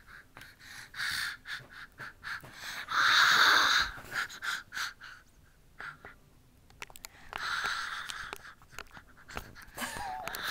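A child's heavy breathing close to the microphone: three spells of rasping exhalations, the loudest lasting about a second, with small clicks of the camera being handled against his face.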